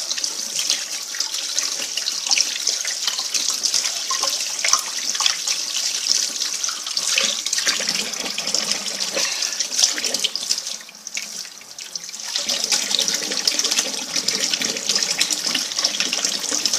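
Kitchen tap running into a sink during washing up, a steady rush of water that drops away for about a second near the middle and then comes back.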